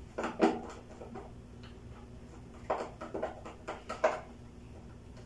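Small clicks and taps from hands working a wire into its connection at a fluorescent lamp ballast on a wiring board. A cluster comes about a quarter second in, and another run from just under three to about four seconds in.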